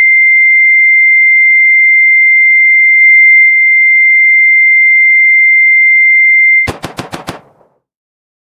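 A loud electronic beep: one pure, high, steady tone held for about six and a half seconds and cut off abruptly. A quick run of about five sharp clicks follows.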